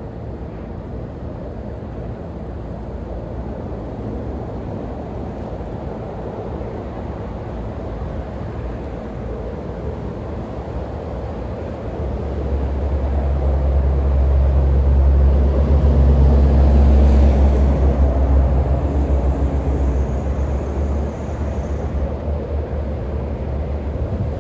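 Steady low outdoor rumble with a motor vehicle's engine drone that swells about halfway through, peaks a few seconds later and then fades as the vehicle passes.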